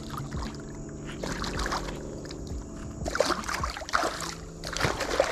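A hooked channel catfish splashing and thrashing at the water's surface in several irregular bursts as it is played in.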